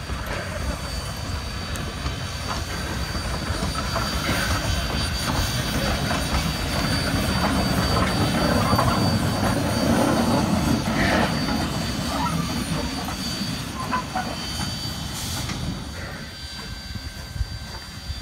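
NSWGR 32-class steam locomotive 3265 running past, its low rumble building as it comes close and fading as it moves away.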